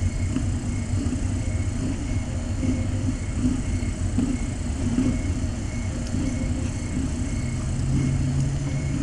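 Calico mother cat purring as her kittens nurse: a steady low rumble that swells and eases in a slow, even rhythm.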